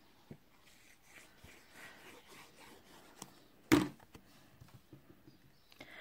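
Quiet handling of cardstock during gluing: faint paper rustling and small clicks, with one sharp knock a little before four seconds in.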